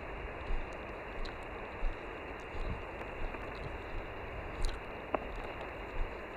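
Amateur radio transceiver hissing on an empty sideband channel: steady static cut off at about 3 kHz, with no station answering. Soft footstep thumps come about every two-thirds of a second underneath.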